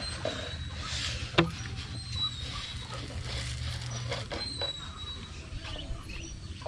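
A plastic bottle feeder rustling and knocking against plastic mesh as it is handled, with one sharp knock about a second and a half in. Faint, short, high peeps of chicks come through now and then.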